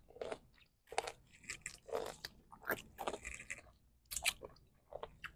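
A person chewing and crunching bites of a juicy chamoy-coated pickle, with a run of irregular wet crunches.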